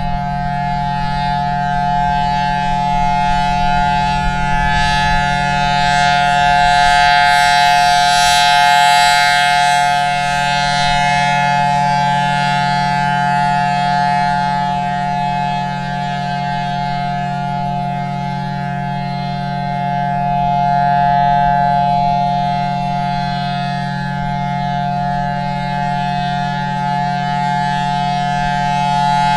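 Federal Signal Thunderbolt 1000T rotating siren sounding a steady tone. Its pitch holds level while the loudness swells and fades as the horn turns past, about every 13 seconds.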